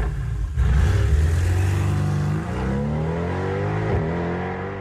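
Car engine revving up, its pitch climbing steadily through the second half, then fading away at the end.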